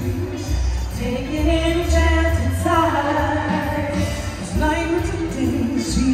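Live amplified stage performance of a festive song: a female lead singer and backing singers sing into microphones over band accompaniment with a steady bass pulse.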